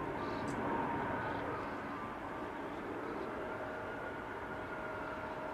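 Distant airliner jet engines: a steady rush of engine noise with faint whining tones, a further whine joining about three and a half seconds in.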